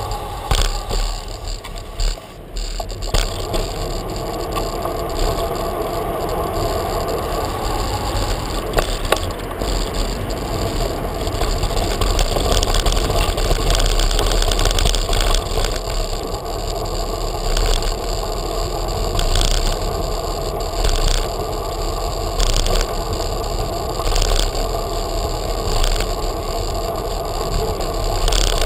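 Bicycle rolling over stone paving and cobbles: steady tyre and rattle noise with scattered knocks, heard close up from a camera mounted low on the bike.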